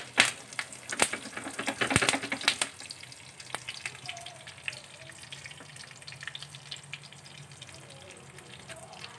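Curry leaves, dried chilies and mustard and cumin seeds sizzling in hot ghee in a small frying pan. There is a cluster of sharp pops and spits over the first two to three seconds, which then settles to a quieter, steady crackle.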